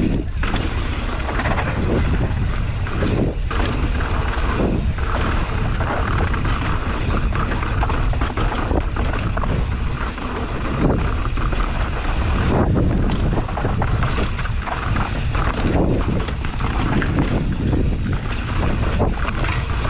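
Wind buffeting the microphone: a loud, low rumbling rush that swells and eases in gusts.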